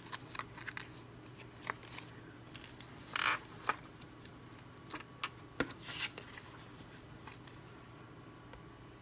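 Small paper and cardboard pieces being handled: scattered light taps and clicks, with a short rustle about a third of the way in and another around two thirds of the way through.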